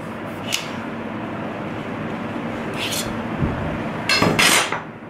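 Steel ball-bearing drawer slide being slid apart, its bearings rolling with a steady rasping along the rail. There is a click about half a second in and a louder metallic clatter about four seconds in.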